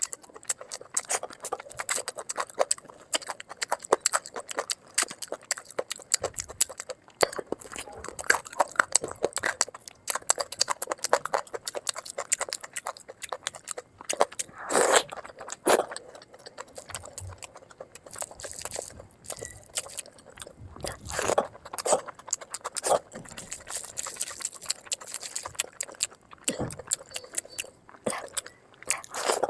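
Close-miked eating sounds: dense, rapid crunching and chewing of food into a sensitive microphone, played at double speed so the bites and crackles run together.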